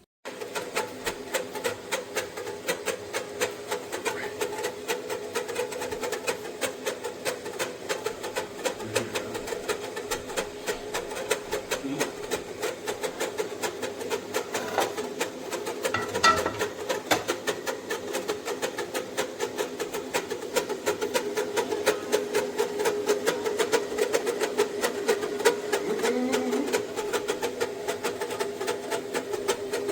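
Stainless steel stovetop kettle heating on the burner toward the boil: a fast, steady rattle over a low hum, a little louder in the second half.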